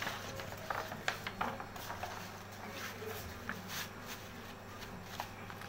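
Paper sheets of handwritten notes being turned and handled: faint rustles and small taps over a low steady hum.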